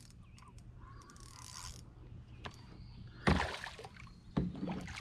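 Hooked largemouth bass splashing at the surface beside a canoe as it is fought in. Two short bursts of splashing come about three seconds in and again a second later, after a quiet stretch with a few faint clicks.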